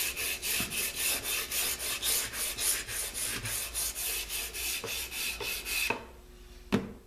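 Sanding block with sandpaper rubbed back and forth along the edge of a pine strip, quick even strokes about five a second, easing the routed chamfer. The sanding stops about six seconds in, and a single short knock follows near the end.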